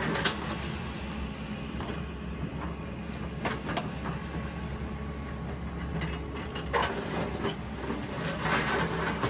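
Heavy demolition machine's diesel engine running steadily, with intermittent crunching and cracking as the building's structure is torn apart, several times through the stretch and most around the end.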